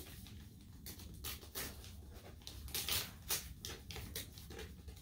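Brown kraft-paper wrapping on a book rustling and crinkling as it is pulled open, in short, irregular crackles.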